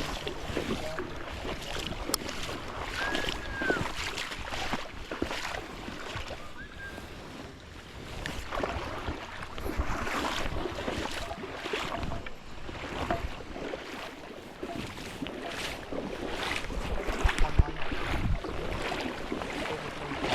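Fast, high creek water rushing, with wind buffeting the microphone in gusts, the strongest near the end.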